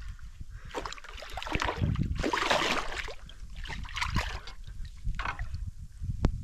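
Water splashing and sloshing in several irregular bursts over a low rumble, with a couple of sharp clicks near the end.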